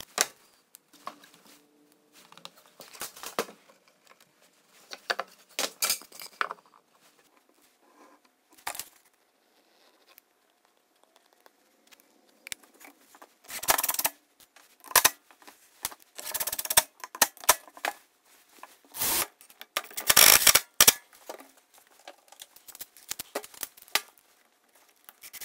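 Aviation snips cutting a plastic outlet cover plate, with sharp snips and cracks in the first few seconds. Louder, longer bursts of tool and handling noise come in the second half.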